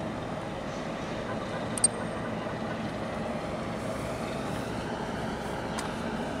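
Steady low engine rumble with no clear rhythm, and a single sharp click about two seconds in.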